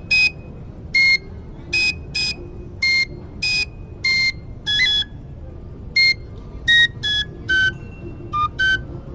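High, shrill flute playing the dance tune in short, detached notes, roughly one or two a second. In the second half the notes step lower, and one note slides up in the middle.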